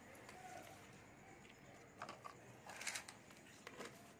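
Mostly near silence, with a few soft rustles and scrapes about two and three seconds in: hands gathering chopped okra scraps on a concrete floor.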